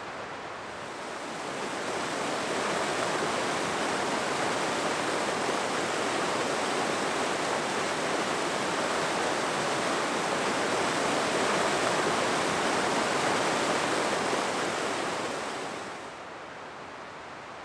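Rushing water of a fast snowmelt mountain creek, a steady, even rush that swells in over the first two seconds and fades down about 16 seconds in.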